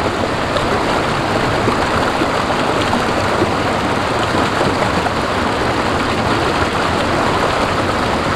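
Steady rush of stream water in a rocky pool, with splashing as a swimmer dives under.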